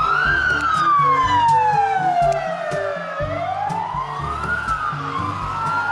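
UK ambulance siren on a slow wail, its pitch falling for about three seconds and then rising again near the middle before falling once more, over background music with a steady beat.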